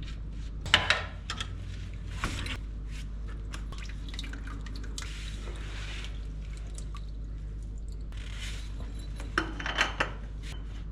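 Engine oil draining out of a Honda S2000's oil pan and dripping into a catch container, with scattered small clicks and a couple of spells of pouring hiss.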